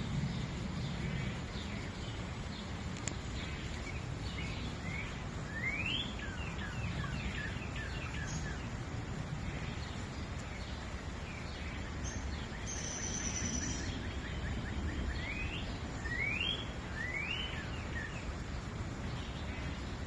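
Shallow forest stream flowing steadily over its bed, with small birds chirping over it: scattered short chirps, quick rising calls about six seconds in and twice more later, and a brief high whistle near the middle.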